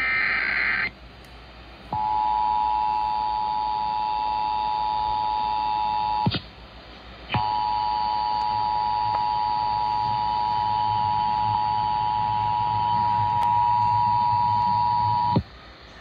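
Emergency Alert System test broadcast on AM radio, played through a portable Bluetooth speaker. The end of a digital header burst stops about a second in. Then the steady two-tone EAS attention signal sounds for about four seconds, drops out for about a second, resumes, and cuts off sharply near the end.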